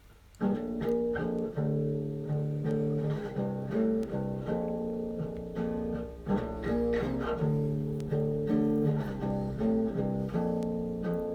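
Instrumental background music of plucked string notes over a low bass line, starting abruptly about half a second in.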